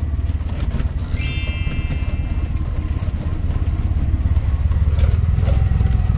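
Bajaj mototaxi (auto-rickshaw) engine running steadily, heard from the cab while driving. About a second in, a short stack of high chime-like tones drops in pitch and rings for about a second and a half.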